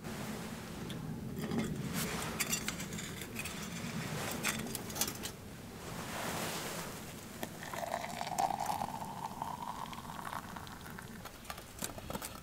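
Clinks, knocks and scrapes of metal cookware being handled on a Firebox folding wood-burning twig stove: a pot lifted off and set back, a pan lid lifted off. A faint steady rushing tone runs from about eight to ten seconds in.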